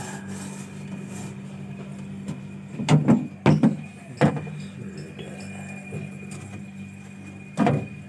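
Single-door Sanyo refrigerator's compressor running with a steady low hum after a refrigerant recharge, the freezer already cold. Four knocks come in quick succession about three to four seconds in, and one more near the end.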